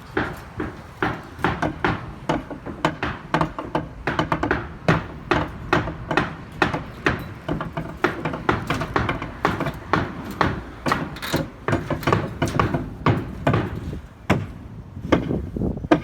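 Rapid, irregular knocking and thudding, a few impacts a second, as from hand work on a building site.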